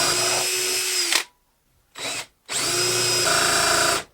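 Electric drill boring into a wooden stool leg: it runs steadily for about a second and stops, gives a short blip, then runs again for about a second and a half.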